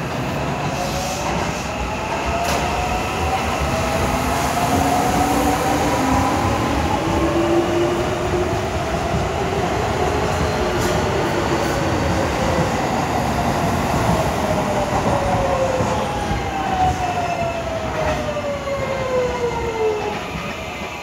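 JR West 207 series electric train moving past the platform over the rumble of wheels on rail. The whine of its traction motors rises in pitch over the first several seconds, holds, then falls away over the last few seconds.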